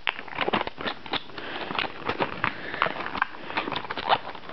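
A diecast car's box being opened by hand: irregular crackling and clicking of the packaging, several small snaps a second.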